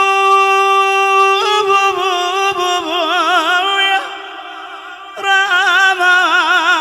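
Male voice chanting an Arabic Shia lament in a drawn-out, melismatic style. A long steady note gives way about a second and a half in to phrases that waver in a fast vibrato. The voice drops away briefly about four seconds in and comes back on the word 'khuya' ('my brother').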